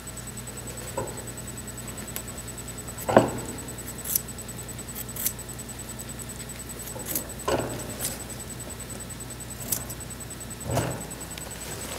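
Guinea pig biting and crunching a carrot: scattered short, crisp crunches, with a few louder knocks, the loudest about three seconds in, over a steady low hum.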